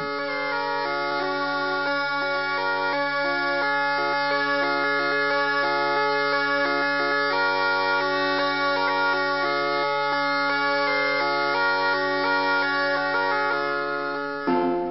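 Bagpipe music: a stepping melody played over a steady low drone, which stops just before the end.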